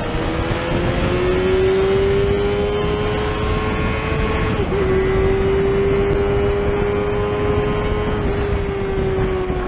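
Suzuki GSX-R 750 SRAD's inline-four engine pulling at steady cruise, its note climbing slowly, dipping briefly about halfway, then holding and easing off near the end. Heavy wind rush runs under it.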